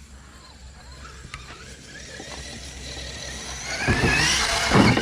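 Spektrum 1200kv sensored brushless motor of an Axial SCX6 1/6-scale RC truck whining as it accelerates, the pitch rising and the sound growing louder over the last couple of seconds, with a thump near the end.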